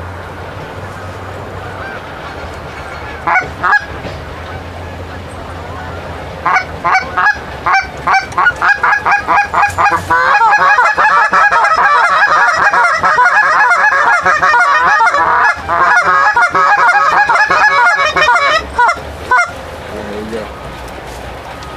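Goose honks and clucks: a couple of single honks, then a series that speeds up into a rapid, unbroken run of honking and clucking for about eight seconds. The run stops abruptly, and a few more honks follow.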